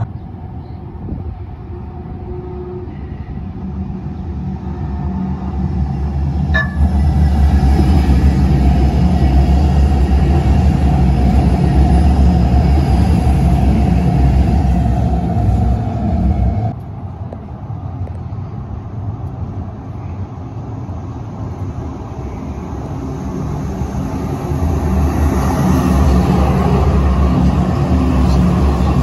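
Calgary C-Train light rail train approaching and passing close by: a low rumble that builds, with a steady motor whine and a short ring about six and a half seconds in. The sound cuts off abruptly just past halfway. Then an older Siemens-Duewag U2 light rail car rumbles in, growing louder near the end.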